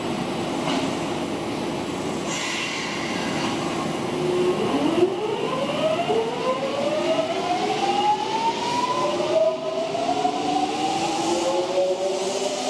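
Kintetsu electric train pulling out of the platform. After a short hiss about two seconds in, its traction motors whine in several tones that climb together in pitch as the train speeds up.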